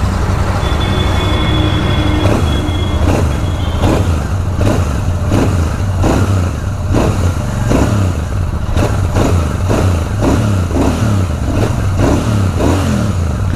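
Royal Enfield Super Meteor 650's 648 cc parallel-twin engine heard at the exhaust, running with a low steady rumble and revved again and again in short throttle blips, each rise in pitch falling back toward idle.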